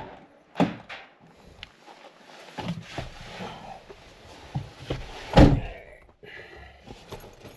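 Old shooting targets being handled and set down in a pile: a knock about half a second in, scraping and shuffling, then a louder thunk about five and a half seconds in.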